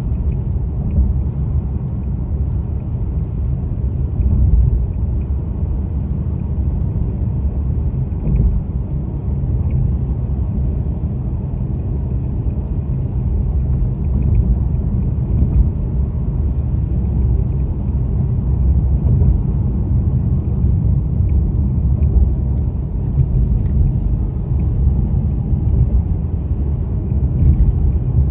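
Mercedes-Benz E200 (W213) giving a low, uneven rumble, with a few faint short knocks now and then; the knocks are what the owner is trying to show.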